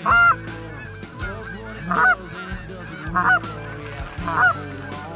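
Canada geese honking: four loud honks about a second or so apart over a steady chorus of fainter honks and clucks from the flock.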